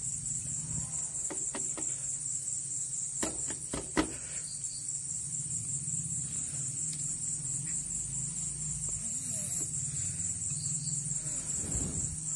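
A few light metallic clicks as the kick-start gear of a Bajaj Pulsar engine is turned by hand to seat it, the sharpest about four seconds in. Under them run a steady high insect chirring and a low hum.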